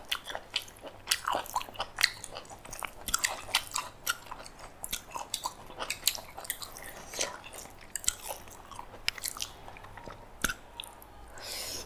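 A person chewing and crunching food at close range: many short crisp crunches, typical of eating papad (fried lentil wafer), with a brief breath near the end.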